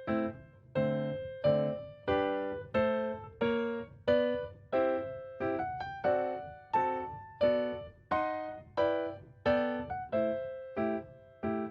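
Background music: a piano playing a gentle melody of single struck notes and chords, each ringing out and fading before the next, about one to two a second.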